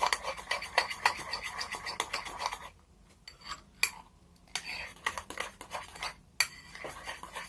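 Stirring utensil scraping and clicking quickly against the side of a small pot while slime mix of glue and shaving foam is stirred. It comes in two runs with quieter pauses between them.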